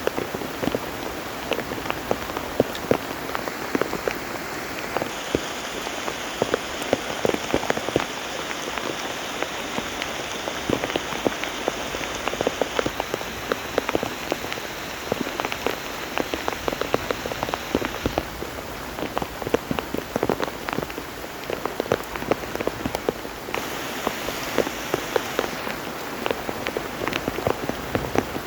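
Steady heavy rain, with many sharp individual drop hits striking close by. Its character shifts abruptly a few times.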